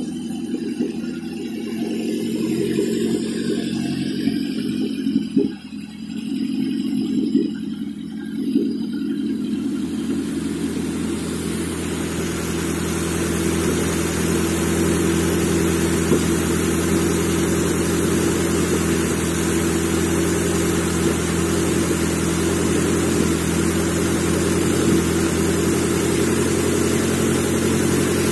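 Nissan SR20 2.0-litre four-cylinder engine running at a steady idle on a test stand. The level dips and bumps briefly a few times in the first ten seconds. About ten seconds in, a steady hiss joins and the sound grows a little louder.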